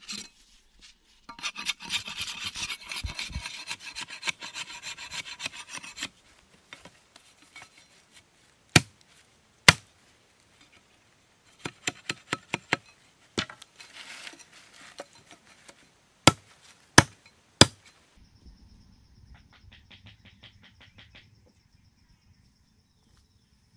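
A knife blade scraping and shaving a wooden stick: a dense run of rasping strokes, then scattered sharp knocks and taps of the blade on wood, the loudest three in quick succession about 16–18 seconds in.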